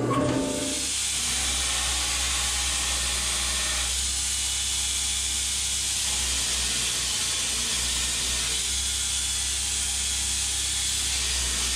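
Belt grinder running: a steady hiss of the abrasive belt on steel over the low hum of the motor, as cut pieces of 1095 and 15N20 steel are ground clean for a Damascus billet.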